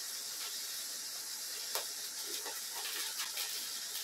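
Scissors cutting open a plastic mailer bag: a few faint snips and crinkles over a steady hiss.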